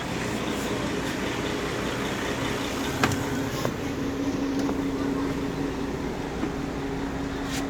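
Mercedes-Benz O-400 RSD coach's diesel engine running steadily, a constant hum with a sharp click about three seconds in and another near the end.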